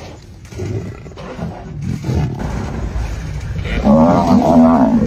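Wild animal cries during a lion attack on a Cape buffalo calf: low rough growling, then a loud, wavering, strongly pitched bawl from about four seconds in.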